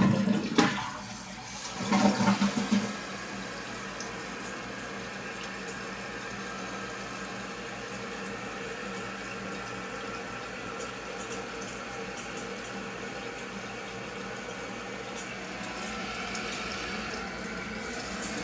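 Jacuzzi Primo toilet flushing: a loud rush of water for about the first three seconds, then a steady hiss as the tank refills, growing slightly louder near the end.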